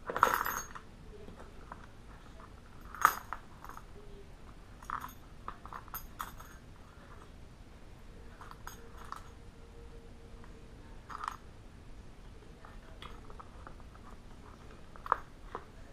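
Scattered clicks, clinks and light knocks of small hard parts: a pistol and red dot sight being handled and set down on a tabletop. There is a short rattle at the very start and sharp knocks about three seconds in and near the end.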